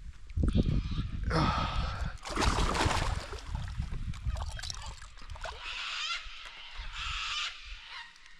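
Two drawn-out honking bird calls in the second half, after a couple of seconds of loud splashing and rustling noise.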